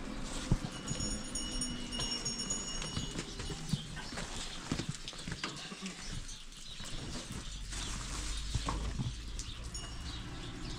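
Farm animals moving about, with many scattered short knocks and clops. A thin, steady high tone sounds for about two seconds near the start.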